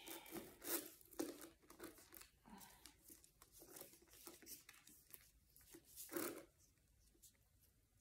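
Faint rustling and light clicks as the straps and chain-strap hardware of a Coach mini convertible backpack are handled and adjusted, with a louder rustle about a second in and again about six seconds in.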